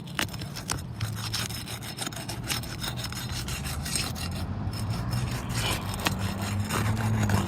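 Rough, irregular scraping and rasping of a tool working under a sealed asphalt shingle to break it loose, with granules grinding off the shingle surface. A steady low hum runs underneath.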